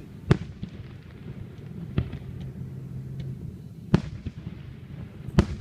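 Fireworks shells bursting: four sharp booms, roughly one every one and a half to two seconds.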